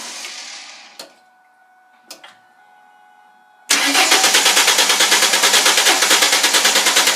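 2000 Ford Mustang 3.8 V6 turning over on the starter without catching. A fading sound at the start, two short clicks, a pause, then a little past halfway steady cranking resumes in an even pulse, the engine never firing: the cranks-but-won't-start fault.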